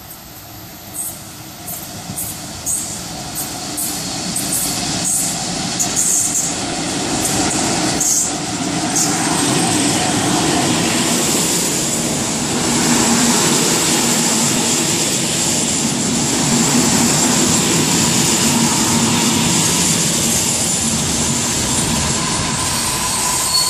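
A passenger train approaching and passing through at speed. Its rumble grows louder over the first several seconds, with a quick series of sharp clicks as it nears, then settles into the steady rush of coach wheels on the rails as the carriages go by.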